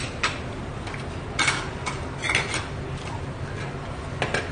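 A few short clinks and taps of spoons and chopsticks against bowls and dishes over a steady low room hum.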